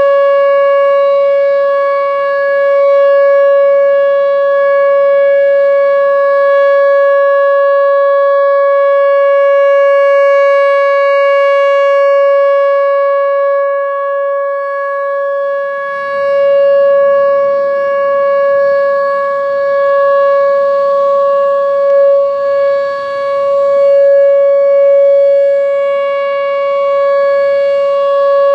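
Whelen WPS-4004 electronic outdoor warning siren sounding a loud, steady tone held at one pitch without wailing: the alert signal of a siren test.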